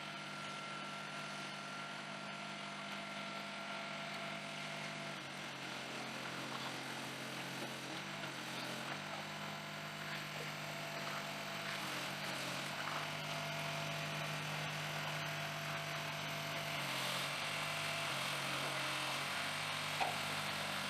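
A low steady hum that shifts up and down in pitch a few times, over a faint hiss.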